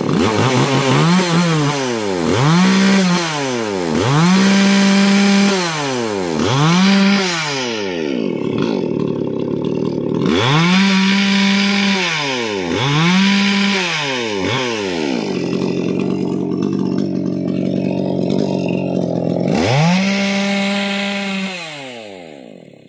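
Maximus 57cc two-stroke chainsaw revving with no load, in repeated throttle blips. Each rev rises and falls in pitch over a second or two, and the engine drops back to idle between them. A longer stretch of steady idle comes before a last rev, and then the sound fades out at the end.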